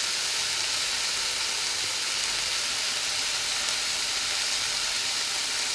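Thinly sliced chicken breasts frying in olive oil in a cast iron skillet, sizzling with a steady hiss.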